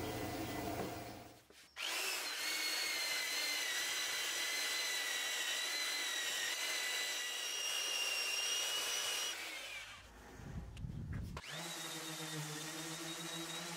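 A Bosch belt sander runs steadily with a high whine for about seven seconds, sanding cured epoxy inlays flush with the oak. After it stops, a random orbital sander starts with a lower, steady hum near the end.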